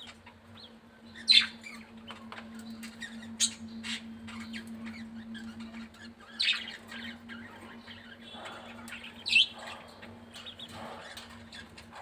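Caged Japanese quail giving short, sharp, high-pitched chirps, four loud ones spread over the span, with faint scratching and pecking sounds from the birds on the wire floor between them.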